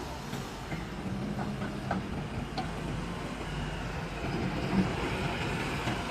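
Heavy diesel machinery running steadily, with a few short clanks and knocks of metal along the way.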